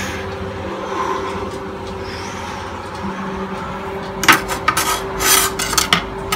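A kitchen knife scraping and knocking against a countertop as a hand picks it up, a quick cluster of short scrapes and clicks in the last two seconds, over a steady low hum.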